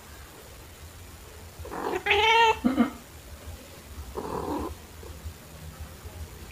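A domestic cat meows once, loud and drawn out, about two seconds in, ending on a short lower note. A softer, rougher sound follows about four seconds in.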